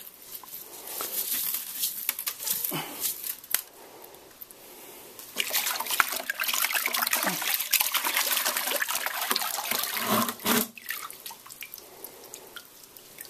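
Salted cod being swished and rinsed by hand in a bucket of water to wash the salt off: water splashing and sloshing, heaviest for several seconds in the middle, with quieter drips and a few knocks before and after.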